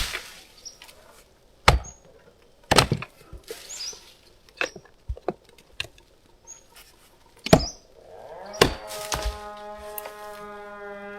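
A string of sharp wooden knocks and thunks, about nine, spaced irregularly. Near the end a cow gives one long, steady moo, with faint bird chirps.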